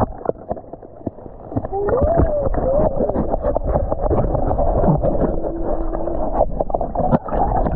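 Pool water sloshing and splashing as people wade in, with irregular small splashes and knocks; a voice rises and falls briefly about two seconds in.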